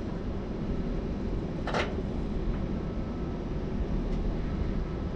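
Steady low rumble of wind on the microphone and rolling noise from a slowly ridden bike, with one brief hiss a little under two seconds in.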